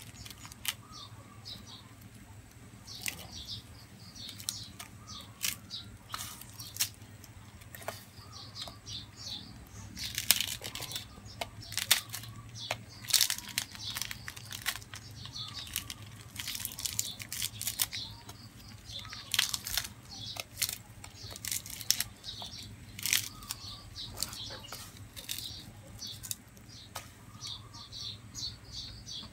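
Dry, crisp grilled fish being torn and broken apart by hand over a pot, in irregular crackling, tearing bursts that come and go in clusters.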